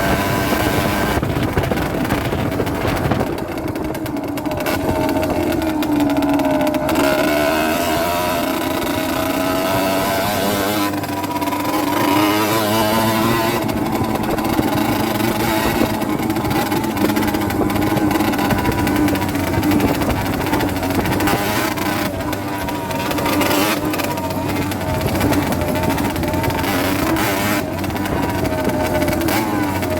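Rieju Drac 50's 50cc two-stroke engine being ridden, its revs rising and falling again and again as the throttle is opened and closed, with brief drops in revs several times.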